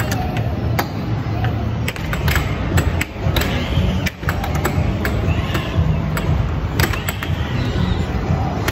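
Arcade din: a steady low rumble with many sharp, irregular clacks, such as an air hockey puck striking mallets and rails on a Dynamo-style table, and a few faint shouts.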